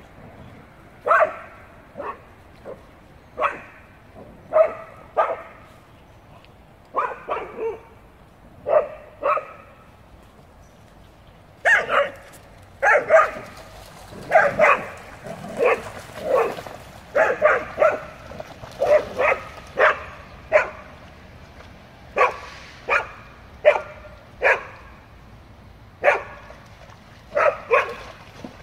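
A dog barking over and over in short barks, spaced out at first and coming faster and closer together from about halfway through.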